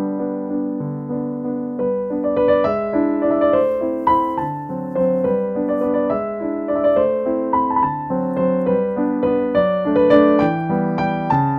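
Background piano music: a melody over lower accompanying notes, at a steady level.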